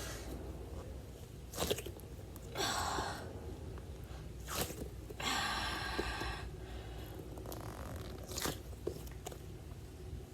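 A squishy toy duck squeezed and pressed by fingers close to the microphone: two longer scrunching stretches and several sharp clicks and pops.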